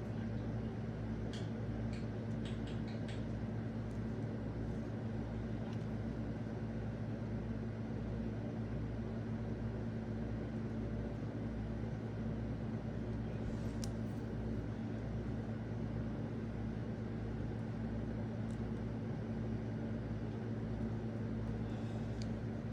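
A steady low electrical or fan-like hum, with a few faint light ticks.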